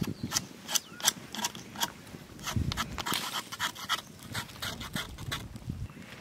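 Whole roosters being dunked and turned in a wok of steaming hot water over a wood fire, scalding them to loosen the feathers: irregular sharp crackles and splashes, two or three a second, with a brief low rumble about two and a half seconds in.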